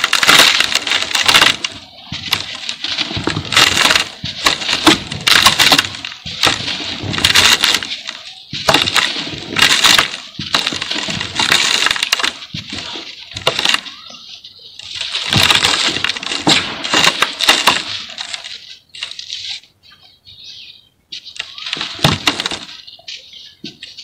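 Dry lumps of sand-and-cement mix crushed and crumbled by hand, a gritty crackling in repeated bursts, with grains and powder pouring into a plastic basin. It dies down briefly about three quarters of the way through, then starts again.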